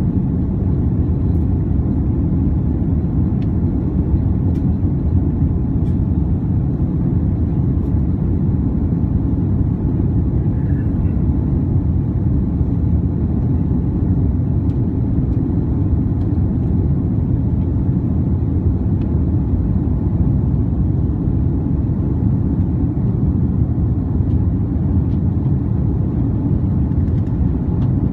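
Steady low rumble of an Airbus A330-300's jet engines and rushing air, heard from inside the passenger cabin shortly after takeoff.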